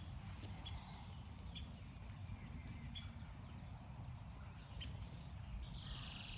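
Short, sharp high chinks at uneven intervals, about one a second, then a quick bird call, a run of high notes and a short falling trill, near the end, over a steady low rumble.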